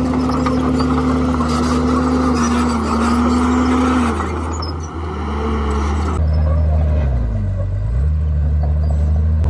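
Komatsu D51PX bulldozer's diesel engine running steadily. Its note drops and comes back up twice, about four seconds in and again near the end.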